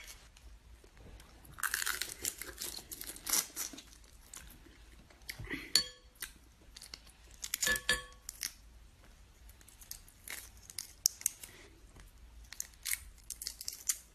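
Shells of cooked prawns being cracked and pulled apart by hand, an irregular run of crackling, tearing and small snaps.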